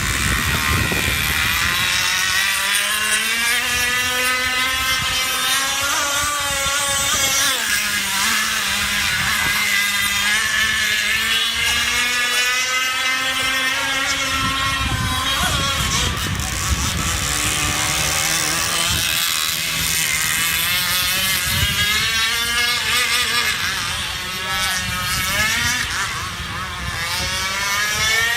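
Radio-controlled model boat's motor running steadily, its pitch rising and falling several times as the throttle is worked.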